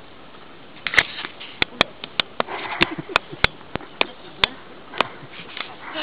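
A series of sharp, irregular clicks and knocks, about a dozen, starting about a second in, with soft rustling between them.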